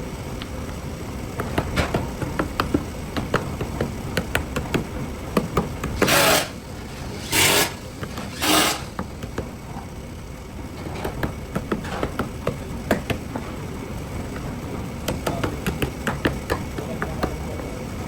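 Metalworking in a workshop: irregular light knocks and taps of tools on metal. Three short hissing bursts come about six, seven and a half, and eight and a half seconds in.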